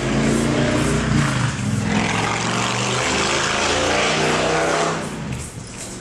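An engine running loudly close by, its pitch shifting up and down as it revs, falling away about five seconds in.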